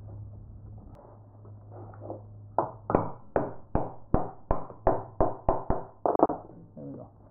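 Wooden wedges being knocked tight in a wooden clamping block to clamp a glued repair piece into a rocking chair seat/leg joint: a quick run of about a dozen sharp wooden knocks, about three a second, starting a couple of seconds in.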